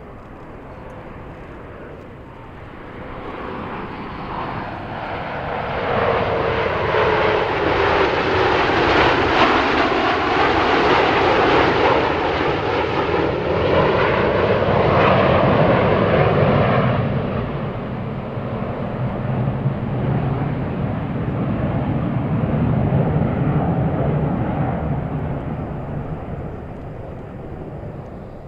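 Canadair CT-114 Tutor jets, each with a single turbojet, flying past. The jet sound swells up over the first few seconds, stays loud for about ten seconds, then eases. A second, smaller swell follows before it fades near the end.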